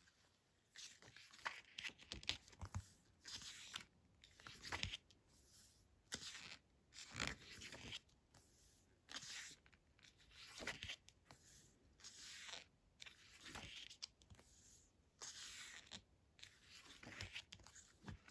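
Glossy photobook pages being turned and handled: a string of short, faint paper rustles and swishes with brief pauses between them.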